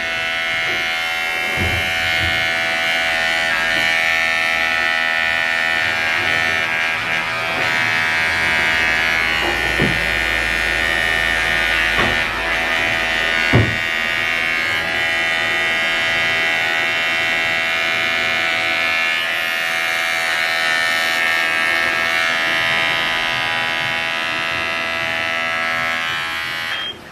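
Cordless electric dog clipper running steadily as it shaves a puppy's matted coat, with a few brief knocks along the way. It is switched off near the end.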